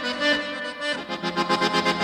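Instrumental music of sustained, held chords, with a run of quick repeated notes in the second half.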